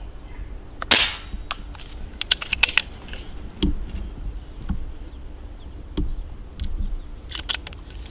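Stoeger XM1 S4 Suppressor 4.5 mm PCP air rifle firing one shot about a second in: a short, sharp report with a brief tail, kept quiet by its built-in suppressor. Afterwards come a quick run of small clicks and a few dull knocks.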